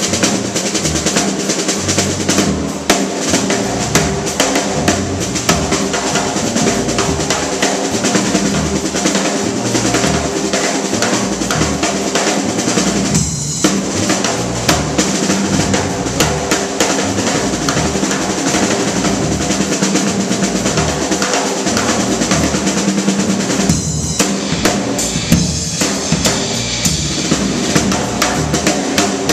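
Live jazz quartet playing, with a busy drum kit (snare, bass drum and rimshots) to the fore over electric bass and keyboard.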